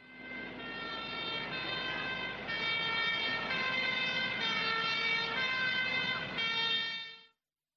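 Siren-like electronic tones, several pitches held at once and stepping to new pitches about every second, stopping abruptly about seven seconds in.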